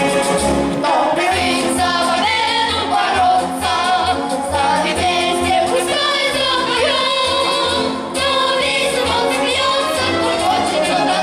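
Several voices singing together over loud instrumental accompaniment with a steady bass beat.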